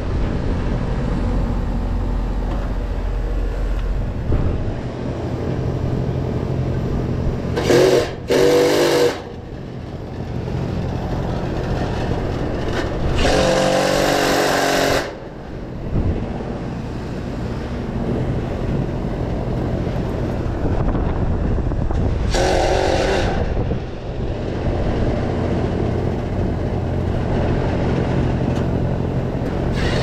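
A steady mechanical hum, broken three or four times by short whirring bursts of a power tool, each a second or two long.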